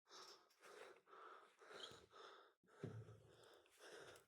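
Near silence, with faint soft noises about every half second.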